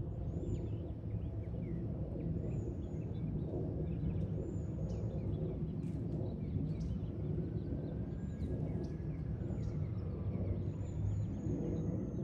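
Steady low rumble of a Boeing 737-700's CFM56 jet engines climbing out after takeoff, heard from the ground, with small birds chirping briefly every couple of seconds.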